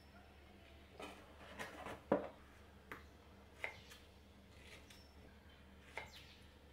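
Hands handling things on a kitchen counter: a run of soft, separate taps and rustles, about seven over several seconds, the loudest about two seconds in.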